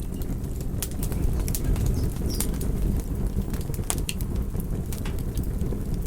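Wood fire crackling, with a steady low rumble of flames and sharp pops and snaps at irregular intervals.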